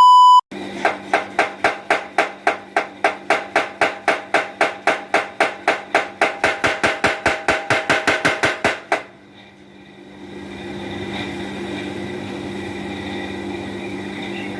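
Mechanical power hammer running, its ram striking in a fast even rhythm of about five blows a second, then stopping about nine seconds in while the motor keeps humming. A short electronic beep sounds at the very start.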